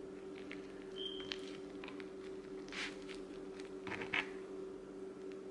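Faint soft rustling, squishing and light taps of hands rolling a tortilla wrap filled with deli ham and bacon on a plastic cutting board, over a steady low hum.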